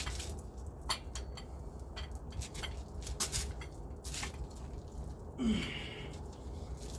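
Irregular metallic clicks and clinks from a socket and breaker bar on a stuck bolt as it is worked back and forth, tightened and loosened to break it free. A brief falling squeak-like tone comes about five and a half seconds in.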